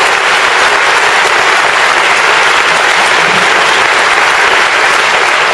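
Large audience applauding steadily: dense, even clapping from a crowd of thousands.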